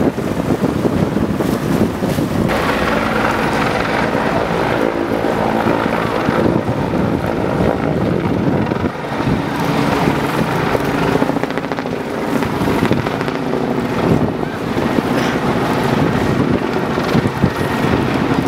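Wind buffeting the microphone, with the steady drone of an engine joining in about two seconds in.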